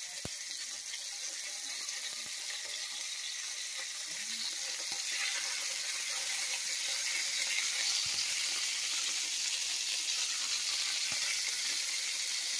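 Seasoned chicken breasts frying in hot oil in a cast-iron skillet: a steady sizzle that grows slightly louder about five seconds in.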